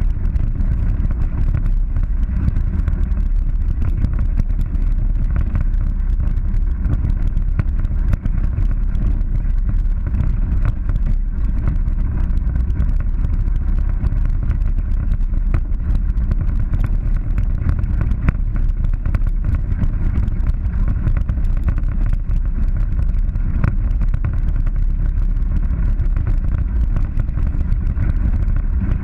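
Polaris 900 side-by-side driving on a rough dirt track: a steady low rumble of engine and drivetrain with wind on the microphone, picked up by a camera on the hood. Frequent small rattles and knocks come from the bumpy ground.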